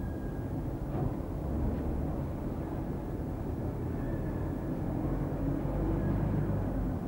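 A steady low rumble, like traffic or machinery, with a faint click about a second in.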